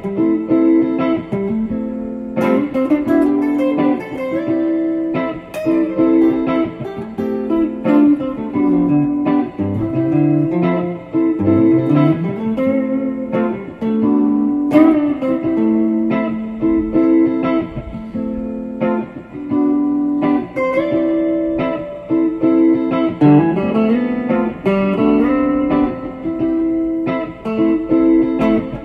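Background guitar music: plucked notes with a few sliding low notes that rise in pitch.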